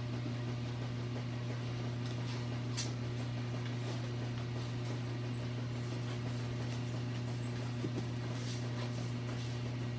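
A steady low hum, with a few faint rustles and scrapes from a cat rummaging with its head inside an empty cardboard can box, the clearest about three seconds in and near the end.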